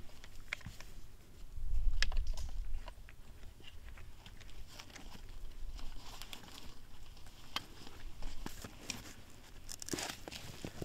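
Irregular crunching footsteps in snow, with a brief low rumble about two seconds in.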